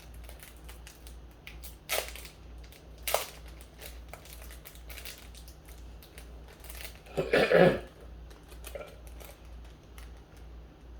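A few sharp clicks and crunches of handling and crinkling, a second or so apart early on, then a short cough-like throat sound about seven seconds in.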